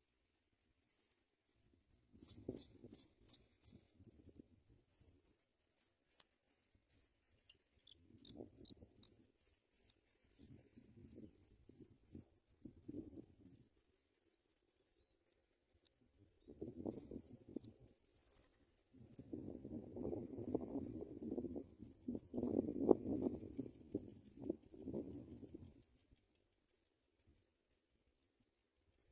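African pipit nestlings begging with rapid, very high-pitched cheeping. It is loudest a couple of seconds in, then thins out into broken runs. Low rustling comes and goes in the nest, most of all in the second half.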